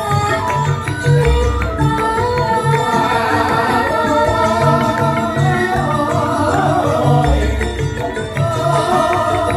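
Javanese gamelan ensemble playing, with a female sinden singing a wavering vocal line over the steady metallophone notes and a quick drum beat. Two deep low strokes sound, about a second in and again about six seconds later.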